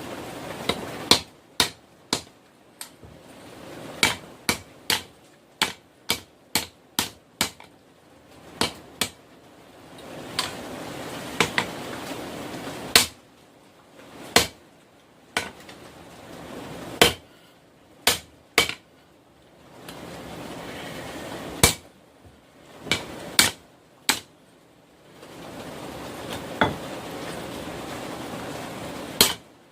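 Hand hammer striking a hot railroad rail end on an anvil during forging: sharp, ringing blows in short irregular runs of one to five strikes with pauses between. A steady rushing noise fills the pauses.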